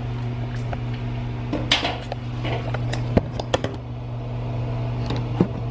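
A steady low hum in a small room, with a brief rustle and a few small knocks and clicks of handling.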